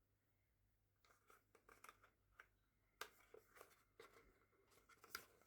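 Faint, scattered clicks and rustles of small makeup packaging, a lip oil and its box, being handled and opened.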